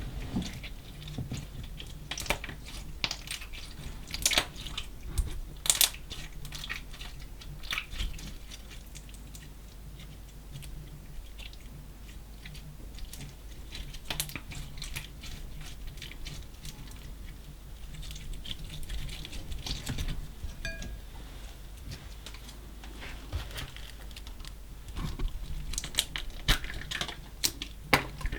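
Slime mixed with small colored particles being squeezed and folded by hand, giving irregular sticky clicks and crackles.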